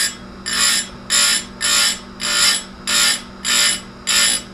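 A saw chain's cutters being sharpened in quick repeated strokes, about eight short harsh scrapes of metal with a high ring, under a steady low hum.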